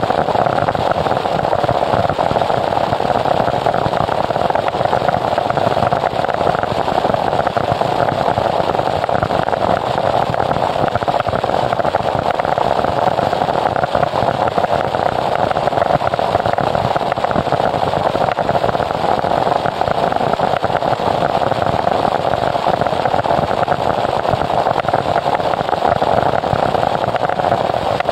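Harsh noise wall music: a dense, unchanging wall of static noise, strongest in the midrange, with no beat, melody or pitch.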